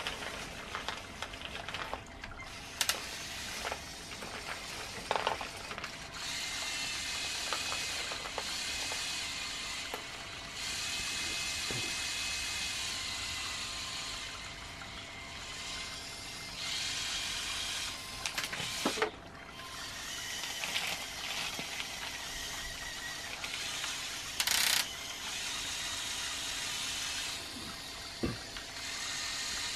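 Small electric motors of a motorized LEGO Technic 8043 excavator whirring in stretches of a few seconds, stopping and starting, as its long linear actuators and turntable move the boom, arm and bucket. Between the runs come clicks and rattles of dried beans being scooped and spilling from the bucket.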